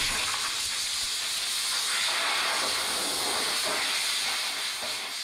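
Compressed-air blow gun hissing steadily as it blows dirt off the top of a tractor's diesel engine, easing off at the end.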